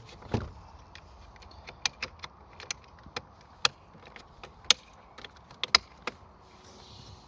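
Small car parts being handled while fitting a new central locking switch: a dull thump near the start, then about a dozen sharp, irregular clicks and taps.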